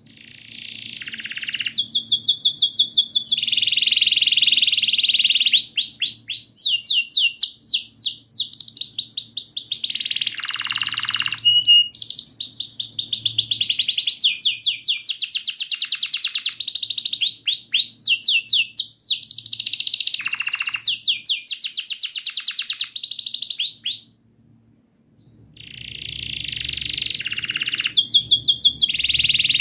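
Domestic canary singing a long, fast song of rapid trills and runs of repeated chirps. It breaks off briefly about 24 seconds in, then starts again.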